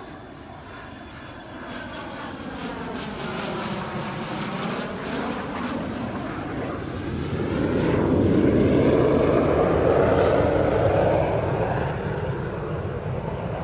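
British Aerospace Hawk T1A jet trainer passing low under the power of its single Rolls-Royce Turbomeca Adour turbofan. The jet noise swells as it approaches, with a sweeping whoosh that dips and rises in pitch. It is loudest from about eight to eleven seconds in, then begins to fade.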